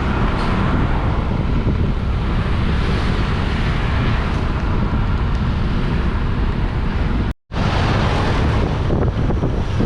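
Heavy wind buffeting on the microphone of a moving 125cc scooter, over steady engine and road noise. The sound drops out for a moment about seven seconds in.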